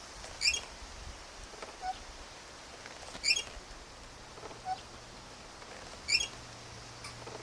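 A swing squeaking in a steady rhythm: a sharp high squeak about every three seconds, three times, with a fainter, lower squeak halfway between each.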